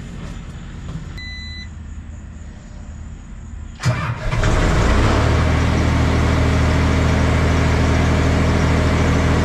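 Skid steer engine running with a low steady hum, and a short electronic beep about a second in. Just before four seconds a sharp click comes, and the engine then runs much louder and steadily.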